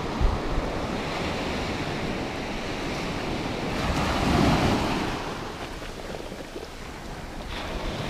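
Small surf waves breaking and washing up over a sandy beach at the water's edge, with one wash swelling louder about four seconds in.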